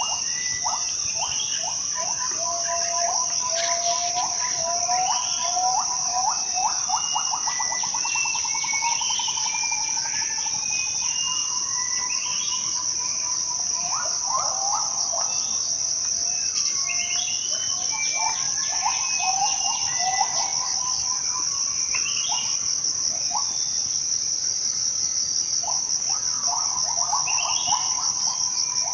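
Borneo tropical forest soundscape: a steady, high-pitched insect drone, with many birds calling over it in short whistled notes and a fast trill about eight seconds in.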